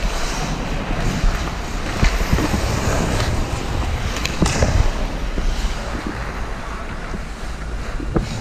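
Pickup ice hockey play heard from on the ice: a steady scrape of skate blades with low wind rumble on the microphone. A few sharp clacks come through, about two, three, four and a half and five seconds in.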